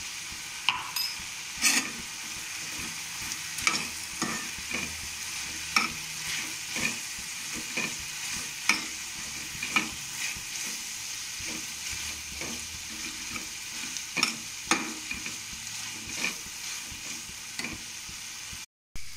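Chopped ivy gourd, onion and tomato sizzling in oil in a metal kadai, with a slotted metal spatula clinking and scraping against the pan as it is stirred, at irregular intervals of about a second. The sound cuts out briefly near the end.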